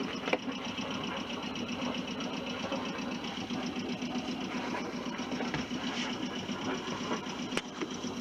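Boat's inboard engine idling, a steady rapid clatter.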